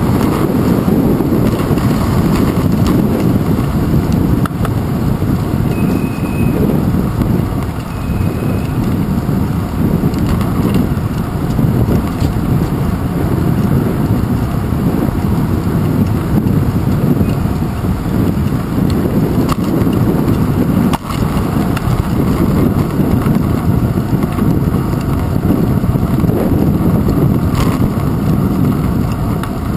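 Steady rumble of a bicycle rolling along a paved path, picked up by a handlebar-mounted action camera: wind buffeting the microphone and tyre and road noise, with a brief knock about twenty seconds in.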